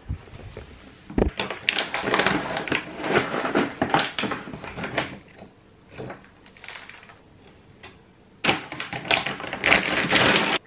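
Dry cat food handled in its crinkly plastic bag, the kibble rattling and the plastic rustling in two spells of rapid clicking, the second near the end.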